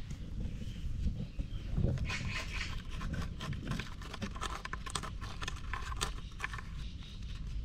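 A cat's front claws scratching a weathered wooden post: a rapid run of short scratching strokes from about two seconds in until near the end.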